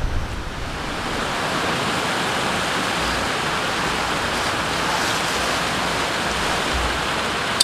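Water pouring over a lake overflow weir and tumbling down a stepped, rocky stream, a steady rush.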